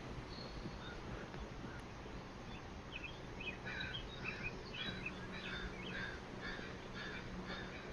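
A bird calling in a quick series of short, repeated chirping notes, starting about three seconds in, over steady outdoor background noise with a faint low hum.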